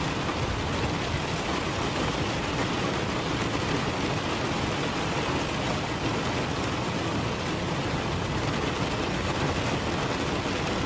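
Steady hissing noise bed, spread evenly from low to high pitches and unchanging in level, of the kind used to mask subliminal affirmations.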